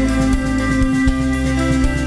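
Instrumental post-rock band playing live: held electric guitar notes over a sustained bass line and regular drum hits.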